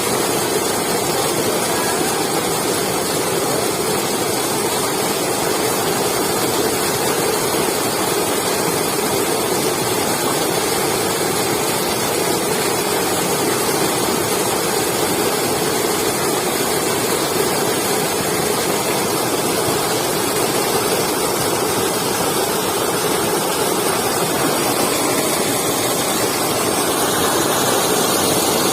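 Waterfall with a steady, loud rush of falling water.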